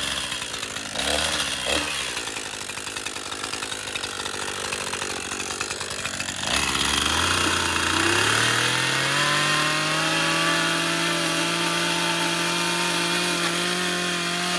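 Two-stroke gas chainsaw running unevenly with two short revs near the start. About six seconds in it is throttled up, its pitch climbing for a few seconds to full speed, then holding there steadily as the chain is worked against a plastic salsa bottle.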